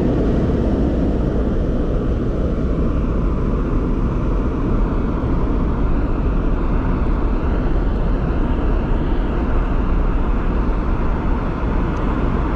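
Wind buffeting the microphone: a steady, loud rumble.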